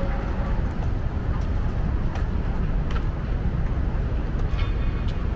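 Steady low rumble of downtown street ambience with distant traffic, and a few light ticks of footsteps on the sidewalk.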